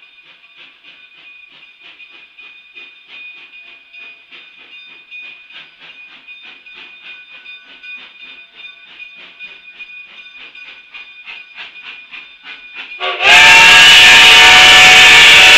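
Cumbres & Toltec narrow-gauge steam locomotive pulling its train away: faint, quick, even exhaust chuffs over a steady hiss. About 13 seconds in, a very loud steam whistle of several tones at once starts suddenly and holds.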